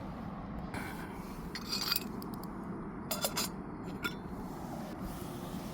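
A few light clinks and scrapes of camping cookware, metal cup and pot pieces knocking together, over a steady low background rumble.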